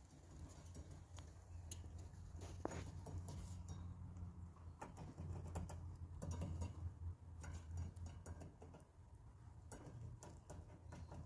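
Lop-eared rabbit gnawing at the bars of a pet gate: faint, irregular clicks and ticks of teeth on the bars, over a steady low hum.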